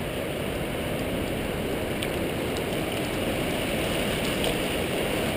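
Steady rushing noise of a flooded river gushing through a narrow channel.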